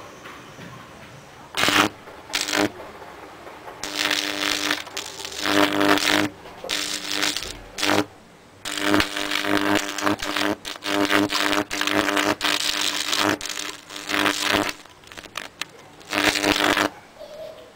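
High-voltage arcing from a 5 kV neon sign transformer across a switching power supply board: about a dozen bursts of buzzing crackle, from a fraction of a second to over a second long, with short quiet gaps between as the probe is touched to the board and drawn away.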